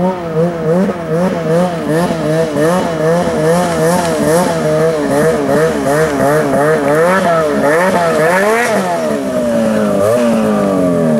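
Ski-Doo Freeride snowmobile's two-stroke engine revved up and down in quick blips, about twice a second, as the sled is worked across sand. About 8 seconds in, it revs up once more and then winds down in a long falling glide.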